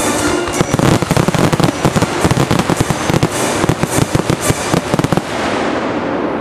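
Fireworks going off: a dense, rapid string of bangs and crackle that fades out about five seconds in.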